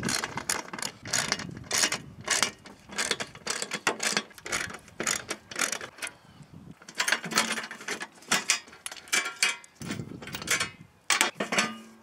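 Hand socket ratchet clicking in quick runs as it backs out 13 mm seat-mounting bolts, with a pause of about a second a little past halfway.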